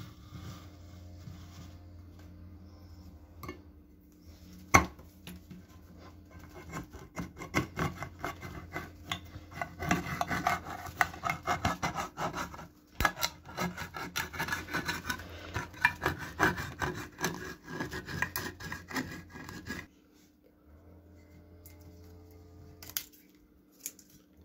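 A restored lever-type can opener, the hooked-blade kind rocked up and down by hand, cutting open a tinplate can lid. There is a sharp click about five seconds in as the blade goes in, then a long run of quick rasping metal-on-metal cuts around the rim, which stops about twenty seconds in.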